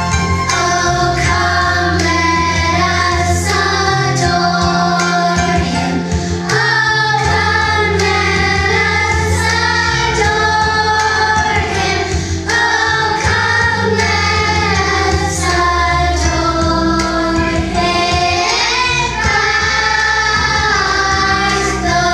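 A group of children singing a song together over instrumental accompaniment with a steady bass line.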